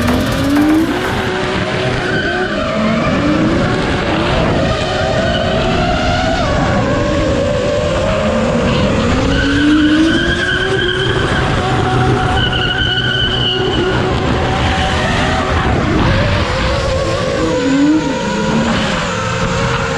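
Drift cars' engines revving in repeated rising sweeps while their tyres squeal through long slides, with held high squeals near the middle. A wavering whine runs underneath.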